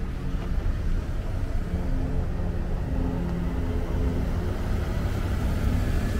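Steady low rumble of road traffic, with a car driving past. Faint background music plays under it.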